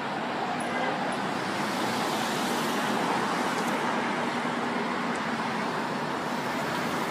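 Steady city street traffic noise: the even hum and rush of passing cars.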